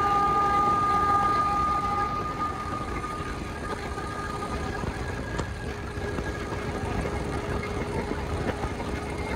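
Isuzu bus on the move with its horn sounding a steady held chord for about the first two seconds, then engine and road noise under a fainter held horn tone.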